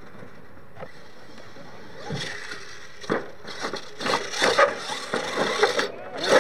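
Radio-controlled monster truck clattering over a wooden ramp and pallets: a run of irregular knocks and scrapes, ending in a loud crash as it tumbles over in the dirt.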